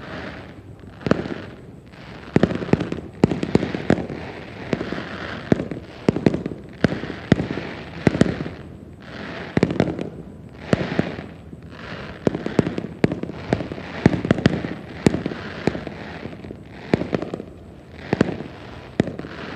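Aerial fireworks going off continuously, with many sharp bangs in quick succession, grouped in clusters every second or two.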